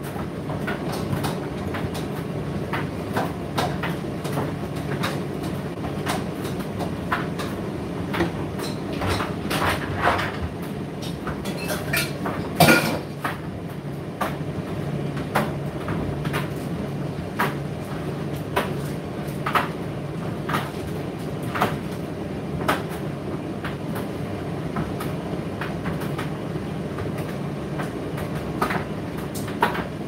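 Indesit IDC8T3 condenser tumble dryer running: a steady hum of the motor and drum, with irregular knocks and clicks from the tumbling load, the loudest about twelve and a half seconds in.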